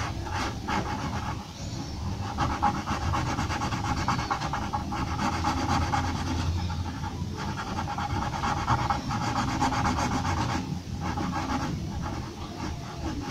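Graphite pencil scratching on drawing paper in rapid short hatching strokes, shading fur, with brief pauses every few seconds.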